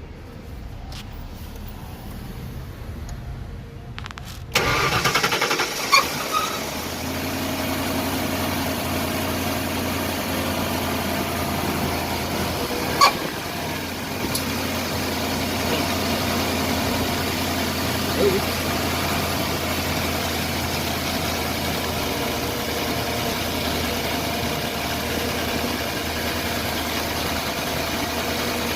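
A Ford Explorer's 5.0-litre V8 starting about four and a half seconds in, then settling into a steady idle, with a couple of sharp clicks. This is the engine's first run after a radiator replacement, with the cooling system filled with water.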